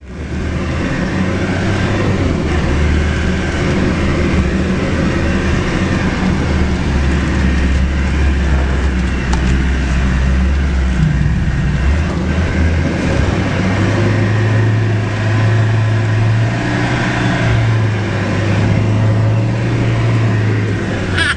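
Off-road 4x4's engine running steadily at low speed on a muddy trail, heard from inside the cab; its pitch steps up about two thirds of the way through.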